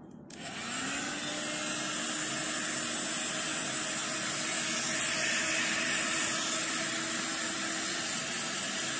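Handheld hair dryer switched on, its motor spinning up with a rising hum in the first second, then blowing steadily.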